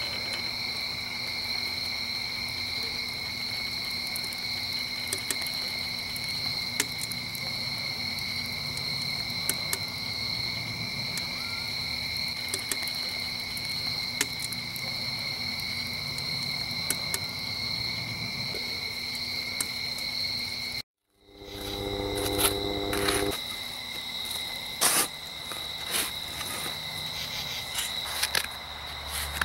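Crickets trilling in one steady high-pitched note, with faint scattered clicks. About two-thirds through the trill cuts out for a moment, then resumes with a short low hum and a few sharp knocks.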